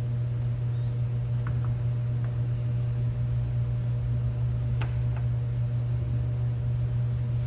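A steady low mechanical hum with a light hiss under it, and a few faint clicks.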